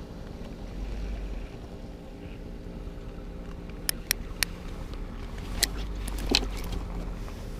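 A steady low mechanical hum, with a few sharp clicks about four seconds in and again a little before and after six seconds.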